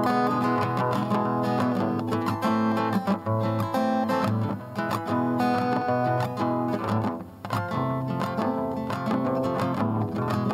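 Music: acoustic guitar strummed and picked in quick notes, with no singing.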